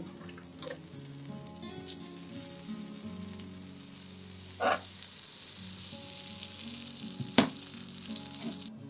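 Butter sizzling as it melts and bubbles in a hot iron frying pan around a slice of bread, while a spoon pushes it about. There is a short scrape about halfway through and a sharp clink of the spoon against the pan near the end, and then the sizzle cuts off suddenly.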